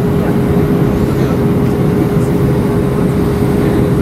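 Airliner cabin noise on the ground: a steady rumble from the running engines and air system, with a steady hum on top.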